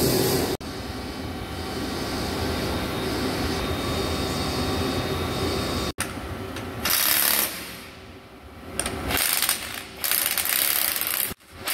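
Steady machine-shop noise, then a handheld electric wrench run in three short bursts, driving the adjusting screw of a vertical lathe's chuck jaw to reset the jaw.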